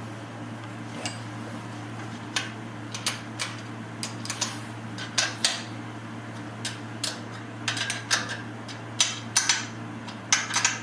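Irregular light metallic clinks and taps of small metal parts being handled and fitted into place, closer together near the end, over a steady low hum.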